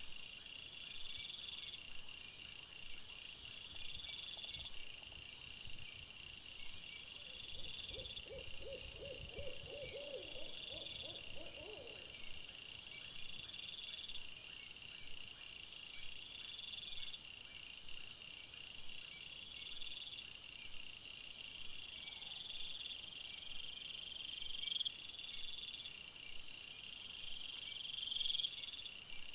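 Night-time outdoor ambience: high chirping repeating about once a second, like night insects. About eight seconds in, a short run of low, evenly spaced calls lasts some four seconds.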